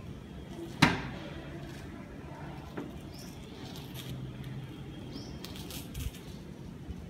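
Handling noise from a parked TVS Scooty as its mirror and handlebar are moved: one sharp click about a second in, then a couple of faint knocks, over a low steady hum.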